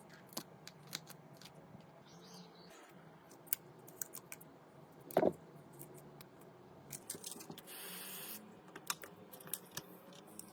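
Scattered light clicks and taps of a mobile phone being handled and worked on by hand, with one louder knock about five seconds in and a short hiss around eight seconds.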